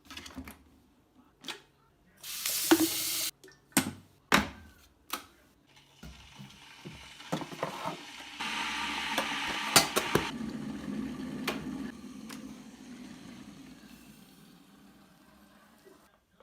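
Coffee being made in a kitchen: sharp clinks and knocks of crockery and utensils, two short bursts of running or pouring water, and a low hum that fades away towards the end.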